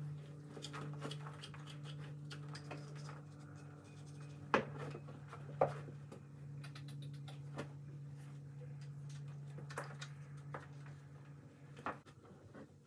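Grooming a horse in its stall: soft scrapes and rubbing with small knocks, and two sharper knocks about halfway through. A steady low electric hum runs underneath and stops shortly before the end.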